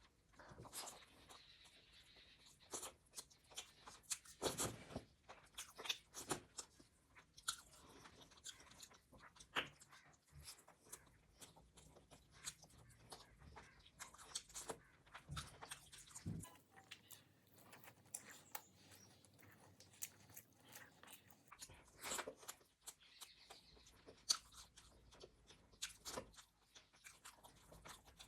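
Close-up sounds of a person biting and chewing crunchy food: a dense run of short, irregular crunches with mouth noises between them.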